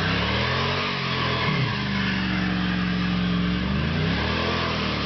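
Small vehicle's engine revving hard during a tyre burnout. Its pitch dips and climbs again a couple of times over a steady hiss.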